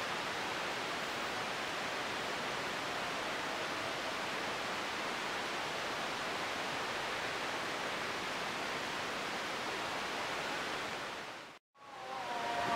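Steady, even rushing outdoor noise, like wind on the microphone, with no clear train sound in it. Near the end it cuts out for a moment, then a steady multi-tone train horn starts.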